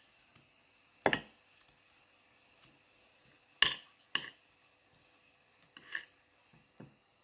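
A knife clinking against a dish as cooked chicken leg meat is cut away from the bone. There are about five sharp knocks at uneven intervals, and the loudest comes about three and a half seconds in.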